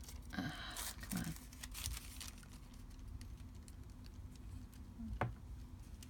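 Faint paper-handling noises: soft rustling and a few light taps and scratches as paper is pressed and smoothed by hand, with one sharp tick about five seconds in.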